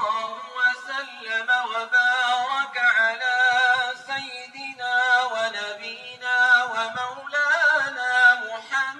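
A man chanting in Arabic over the mosque loudspeaker, a long, drawn-out melody that winds up and down with short pauses for breath.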